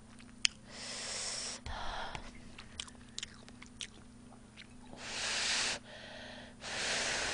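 Instant ramen noodles being slurped up from a cup: three long noisy slurps, about a second in, near 5 s and near the end, with small wet chewing clicks between them. A low steady hum runs underneath.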